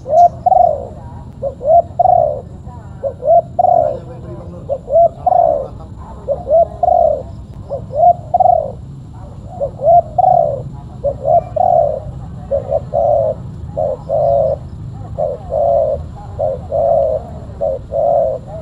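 Spotted dove (tekukur) cooing over and over, short notes about one or two a second in continuous phrases, with a steady low hum underneath.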